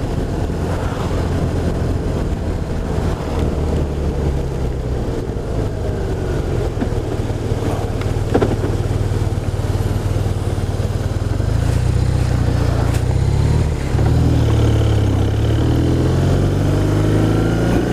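BMW R1200RT's boxer-twin engine running at road speed from the rider's seat. In the second half it pulls harder, its note rising, dipping briefly at a gear change, then rising again.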